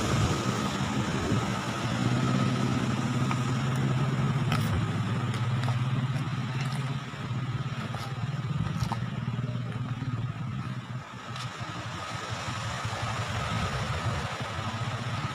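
A vehicle engine running steadily over a rushing noise of wind and road. Its note shifts slightly as it goes, with a few light clicks.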